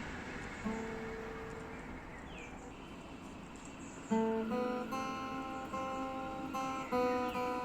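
Background music on acoustic guitar: a few plucked notes about a second in, then from about four seconds in a steady run of picked notes.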